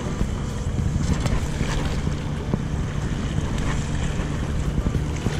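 Wind buffeting the microphone, with small waves washing and splashing against the rocks of the seawall.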